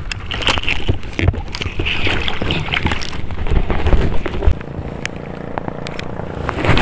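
Wind rumbling on the microphone, with scattered clicks and rustles of handling close by. A faint steady hum joins in about two-thirds of the way through.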